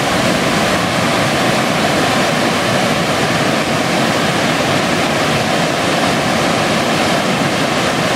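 Waterfall: white water rushing down a broad, sloping rock face, a loud, steady, even rush with no breaks.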